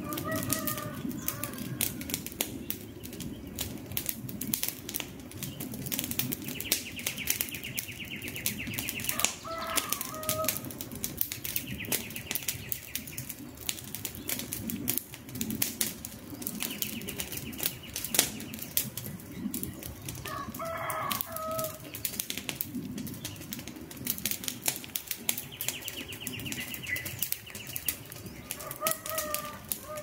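Wood campfire crackling and popping, with steady low burning noise under dense sharp snaps. A bird calls briefly about every ten seconds, and a high buzzing trill comes and goes in between.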